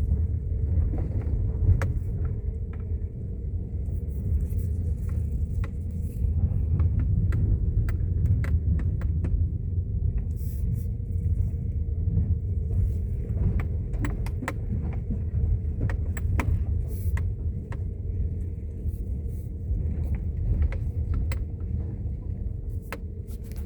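A motor vehicle on the move: a steady low rumble, with many short rattles and knocks scattered throughout.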